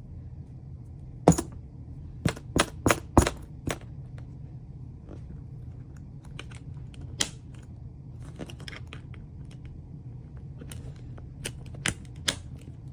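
A series of irregular sharp clicks and knocks, several in quick succession in the first few seconds and a few more near the end, over a steady low hum.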